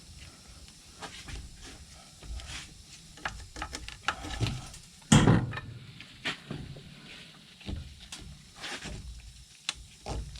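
Scattered clicks, rustles and knocks as worn nets are worked out of a quad's nerf-bar mounts, with one loud knock about five seconds in.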